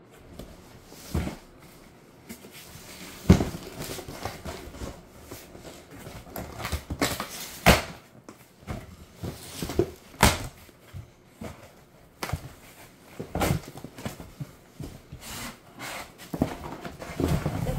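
Cardboard box being opened and its contents handled by hand: irregular knocks, thumps and rustling, with the sharpest knocks about three seconds in and again around the middle.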